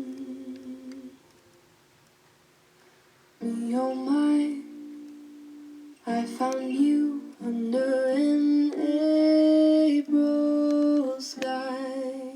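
Background pop song: a wordless hummed or sung melody over plucked strings, with a near-quiet pause from about one second in to three and a half seconds in.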